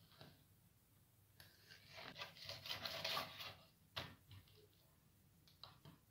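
Large kitchen knife cutting a fillet off a mullet on a wooden cutting board: a rasping scrape for about two seconds as the blade works through the fish, then a single sharp knock about four seconds in.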